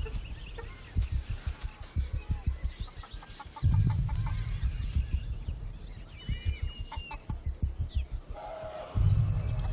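Chickens clucking, with small birds chirping and whistling over a low, pulsing music bed that swells in and out.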